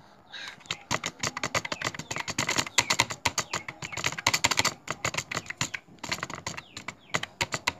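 Fast, irregular clicking of keys on a wired computer keyboard as someone types rapidly, starting about half a second in with a short lull about six seconds in.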